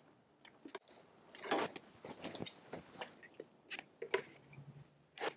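Faint handling sounds of plastic cable ties and wiring being fastened around a go-kart's chassis tubes: scattered small clicks and short scratchy rustles.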